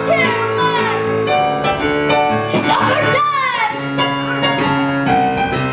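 Show-tune backing music with piano, playing on through an instrumental dance break.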